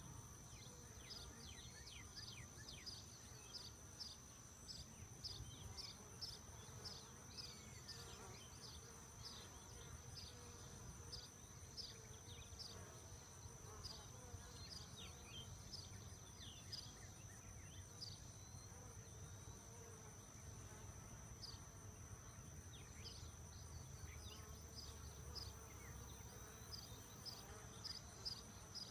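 Faint buzzing of honey bees flying around a hive opened for inspection, under a steady high-pitched whine and many short, high chirps repeating two or three times a second.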